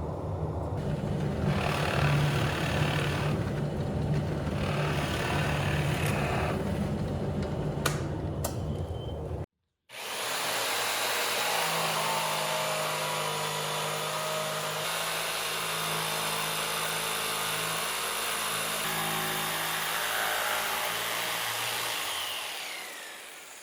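Power woodworking tools cutting wood: a motor runs with several separate cutting passes for about nine seconds, and the sound breaks off abruptly. Then a steady, high-whining machine runs and winds down near the end, its pitch falling as it is switched off.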